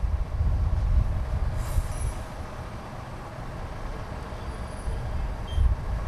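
Street ambience: a low, uneven rumble of traffic and idling vehicles with a faint steady hum. It eases off in the middle and swells again near the end, with a brief hiss about a second and a half in.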